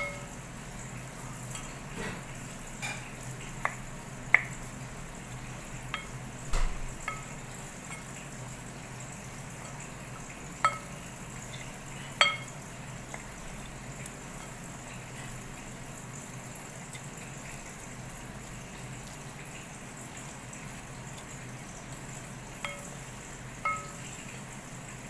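Wooden spoon stirring a wet dumpling filling in a glass mixing bowl: scattered light knocks of the spoon against the glass, some with a brief ring, over a steady hiss. The knocks come mostly in the first half and again near the end.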